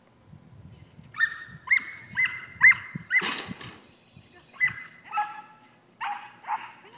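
A dog barking repeatedly in short, high-pitched barks: a quick run of about five, two a second, then a pause and a few more, spaced further apart.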